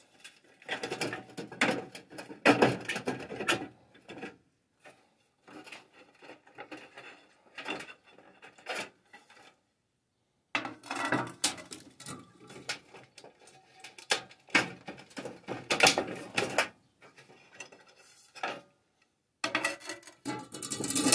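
Old fluorescent tubes being twisted out of a shop-light fixture's sockets and handled: irregular clicks, scrapes and light clatter, with a brief silence about halfway through.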